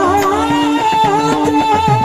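Varkari kirtan music: a wavering melodic line held over a steady drone, with drum strokes that sweep in pitch and quick percussive clicks.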